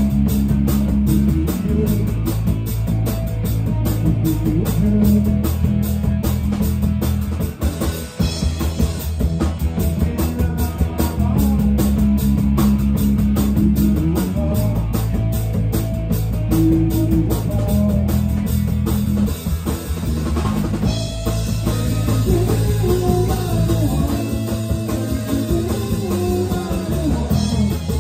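Live rock band playing: electric guitars, bass guitar and a drum kit keeping a steady beat, with the bass strongest.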